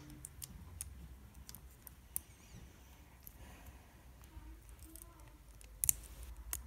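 LEGO plastic parts clicking as the hinged joints of a small brick-built model are folded by hand. The clicks are scattered and faint, with a couple of sharper ones near the end.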